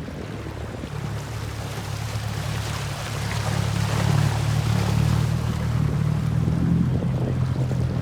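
Motorboat engine running with a steady low hum, getting louder about three seconds in, over the hiss of water rushing past the hull and wind on the microphone.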